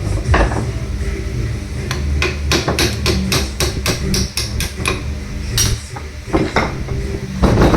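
Hammer tapping on metal during sewing machine repair: a steady run of light taps, about four a second, then a few heavier single blows near the end.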